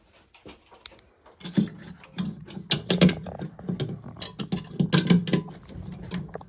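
Rapid clicking and metallic rattling of hardware being handled in a suspended ceiling grid, starting about a second and a half in, over a low steady hum.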